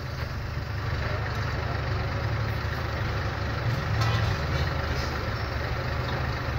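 A large vehicle's engine idling steadily, a low, even rumble.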